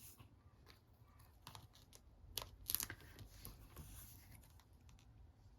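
Quiet handling of papercraft supplies: a few soft clicks and taps, and short peeling or tearing rustles as foam adhesive dimensionals are handled. The two sharpest sounds come a little past the middle.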